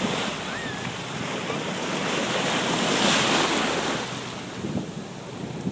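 Ocean surf: a wave breaking and washing up the beach, swelling to its loudest about three seconds in and then easing off, with wind buffeting the microphone.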